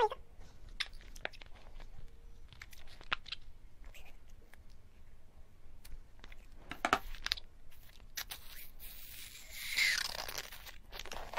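Eating sounds from a soft, rubbery gourd-shaped jelly dessert being bitten open and its filling sucked out: scattered wet mouth clicks, a cluster of louder ones about seven seconds in, and a longer hissing slurp about nine seconds in.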